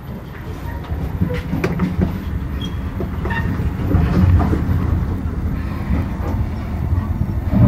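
Small six-person passenger elevator car riding down, a steady low rumble with scattered rattles and clicks from the car, building up about a second in.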